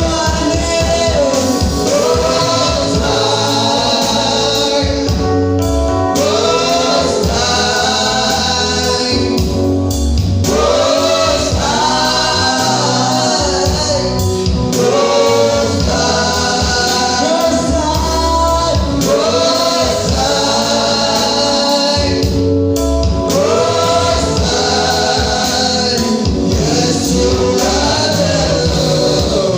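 Gospel worship song: a choir and lead vocals singing over a band with bass and drums.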